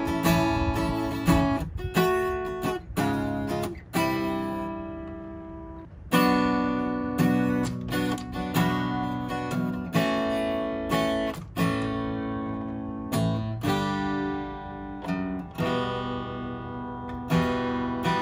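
Taylor 110GB acoustic guitar strummed in chords, each strum left to ring and decay, with one chord held ringing for about two seconds about four seconds in. It is freshly strung, its new strings still stretching.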